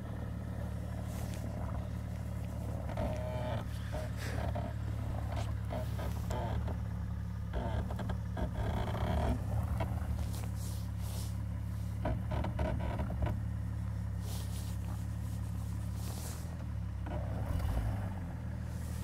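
Jeep Cherokee XJ engine running steadily at low revs, its note shifting and swelling briefly near the end. Scattered rustling and crunching noises come and go close by.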